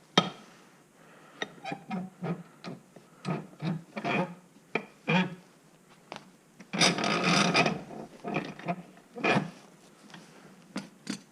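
Corrosion being scraped and scrubbed by hand off an old aluminium pipe wrench: a series of short, irregular rasping strokes, with one longer stroke of about a second past the middle.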